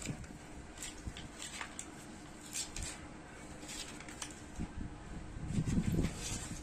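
Faint scattered clinks and scrapes of food being served with a spoon from a steel bowl onto foil plates, over a low steady hum.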